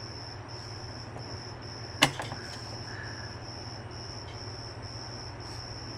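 A single sharp click about two seconds in, typical of the UTV's ignition key being turned, over a steady low hum and a high, evenly pulsing chirp.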